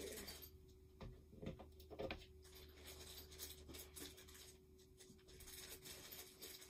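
Near silence: room tone with a faint steady hum, and a few light knocks between about one and two seconds in from handling flat-pack bookshelf parts and screws.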